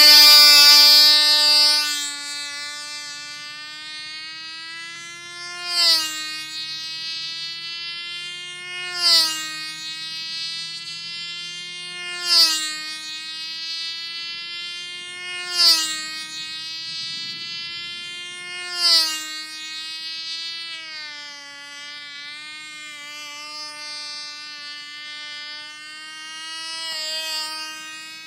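Cox .049 glow engine of a 1/2A model airplane running at a high, steady buzz while the plane circles. It is loud at the start, then swells five times about three seconds apart as the plane passes close, each pass ending in a quick drop in pitch.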